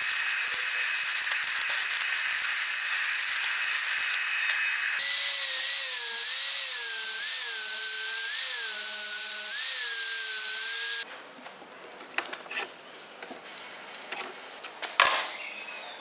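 Electric arc welding crackling steadily for about five seconds, then an angle grinder grinding a steel bolt head held in a vise, louder, its motor pitch dipping and recovering several times as it is pressed into the work, stopping suddenly. Afterwards light clinks of metal parts being handled, with one sharp knock near the end.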